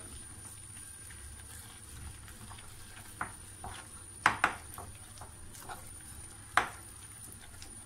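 A hand mixes thick gram-flour batter with sliced potatoes in a glass bowl: quiet stirring, with a few sharp clicks against the glass, two close together about four seconds in and another past six seconds.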